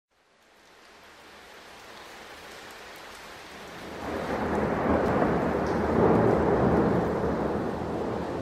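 Rain falling, fading in from silence, with thunder rumbling from about four seconds in and easing off near the end.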